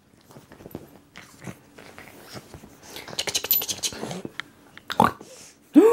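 Pug puppy play-biting and scuffling: snuffling, mouthing and scrabbling sounds with scattered clicks, busiest about three to four seconds in. Near the end come two short vocal sounds that rise and fall in pitch.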